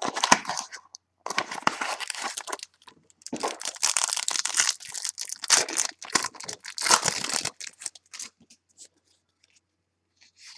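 Packaging being torn and crinkled open by hand to get at a mini box of football cards, in several bursts of ripping and rustling that grow fainter in the last few seconds.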